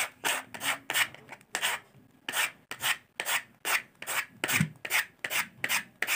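Sandpaper rubbed back and forth by hand over a cricket bat's toe guard, in quick strokes about three a second, scuffing and cleaning its surface so the glue will grip.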